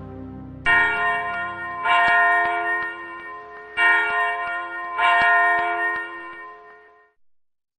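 Church bell struck four times in two ding-dong pairs, each strike ringing on; the ringing dies away near the end.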